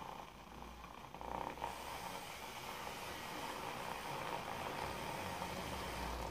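Two handheld milk frothers whirring together, their spinning whisks churning milk into froth with a steady buzzing hiss.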